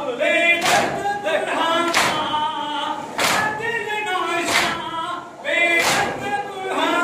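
Men chanting a nauha lament in unison while striking their chests in matam. The open-handed blows land together in a steady beat, about one every 1.3 seconds, between the sung lines.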